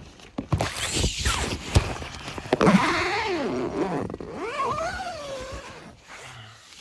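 A nylon tent door zipper being pulled, with scraping and clicks, then a loud drawn-out whine that slides up and down in pitch for about three seconds before fading.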